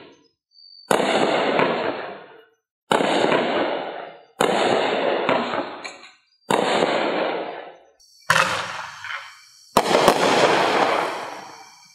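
Consumer fireworks cake (Hot Fireworks Cyber Commando, a 15-shot cake) firing six shots about one and a half to two seconds apart. Each is a sudden bang that trails off over about a second, and the last is a quick double bang.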